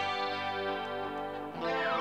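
Live band jamming on guitars over bass guitar. Guitar chords are strummed and left ringing, with a new chord about a second and a half in and a note sliding down in pitch near the end.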